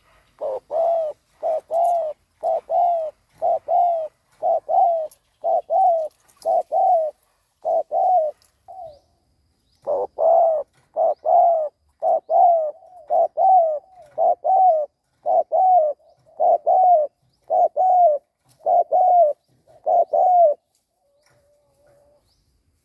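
Spotted dove giving its rapid bowing coo: short, low coos mostly in pairs, about one pair a second. It pauses briefly about nine seconds in, then resumes, and stops near the end.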